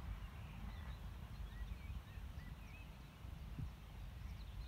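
Small birds chirping in short, quick calls, over a low, uneven rumble.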